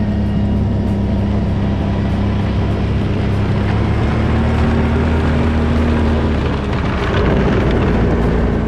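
Snowmobile engine running steadily at travelling speed across lake ice; about seven seconds in, the sound turns rougher and noisier.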